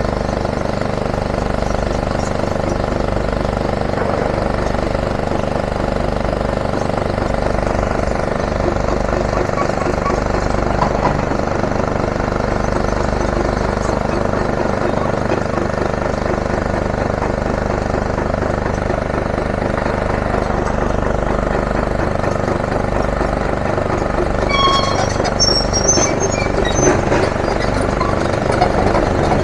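Diesel engines of heavy demolition machinery, an excavator among them, running steadily. A few brief high-pitched chirps come near the end.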